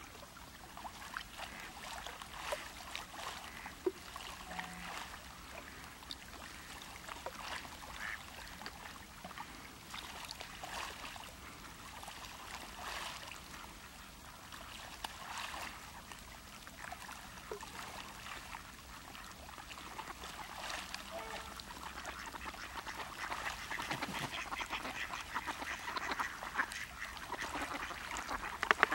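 Trumpeter swans feeding on open water, giving scattered soft honking calls amid splashing as they dip their heads under; the calling and splashing grow busier in the last third.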